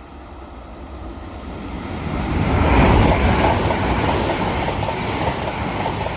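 A Class 800 bi-mode express unit running on its diesel engines passes through the station without stopping, running empty. It grows louder over the first few seconds, is loudest about three seconds in, then keeps rumbling with the clickety-clack of wheels over rail joints as the carriages go by.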